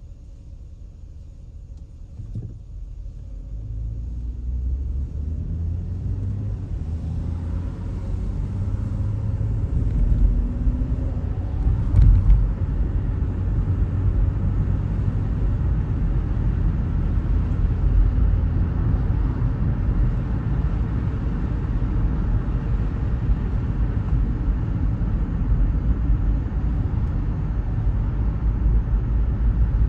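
Car driving along a road: a low rumble of road and engine noise that builds over the first few seconds as the car gathers speed, then holds steady, with a short sharp knock about twelve seconds in.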